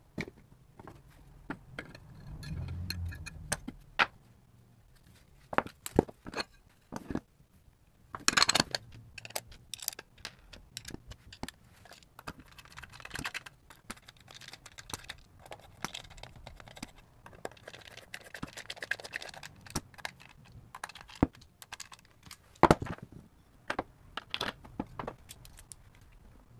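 Clicks, knocks and scrapes of a guitar effects pedal being reassembled by hand: the back plate is fitted to the enclosure and its screws are driven in with a screwdriver, heard as two stretches of fast rasping, with a few sharp knocks as the metal box is set down and handled.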